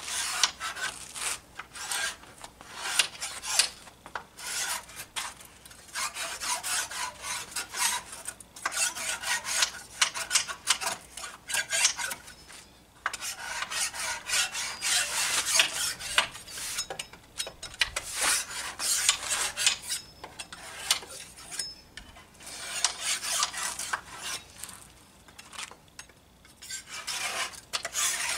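Hand scraper scraping debris out of the gaps between the sanded wooden slats of a bench, in quick, irregular, scratchy strokes with brief pauses.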